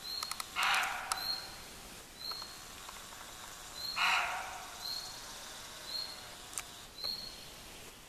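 Roe deer buck barking: two short, harsh barks about three seconds apart.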